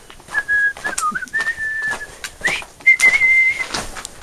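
A person whistling a tune: a few held notes with short slides between them, the last and highest held longest. Footsteps on the trail underneath.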